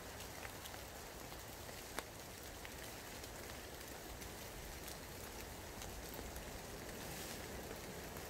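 Steady rain falling, with a single sharp tick about two seconds in.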